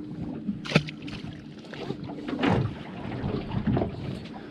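Water lapping against the hull of a small fishing boat, with wind on the microphone and one sharp knock about a second in.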